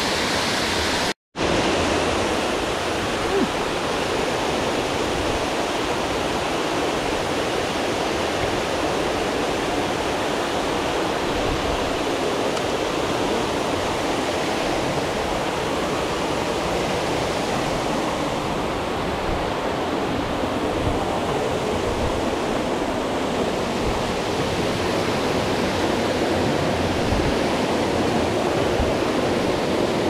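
Steady rush of water pouring down a waterfall's cascade, with a brief silent gap about a second in.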